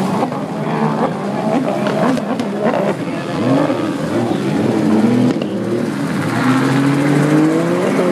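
Engines of several racing runabout personal watercraft (sit-down jet skis) running at high speed, several pitches overlapping and gliding up and down as the craft pass. One engine's pitch climbs steadily over the last couple of seconds.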